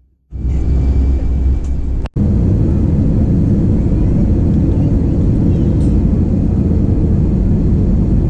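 Steady loud rumble of a jet airliner heard from inside the cabin as it runs along the runway at speed, with a brief dropout about two seconds in.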